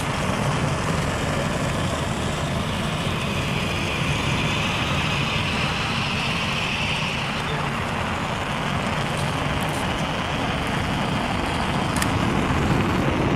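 Homemade soda-can jet engine running with its flame jetting out the back: a steady, even rushing noise with no clear pitch, and a faint click near the end.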